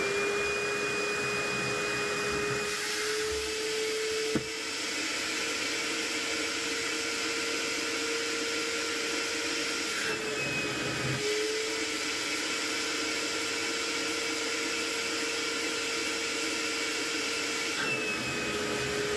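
Ozito 1100-watt corded wet and dry vacuum cleaner's motor running flat out during a suction pressure test, a steady, noisy whine with air rushing and a brief dip in pitch about ten seconds in.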